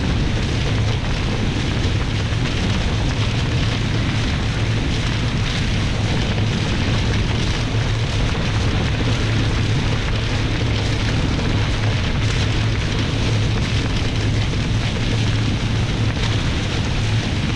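Steady loud rush of wind buffeting the microphone and water hissing past the hulls of a Nacra 20 catamaran sailing fast downwind under spinnaker, with a deep rumble underneath.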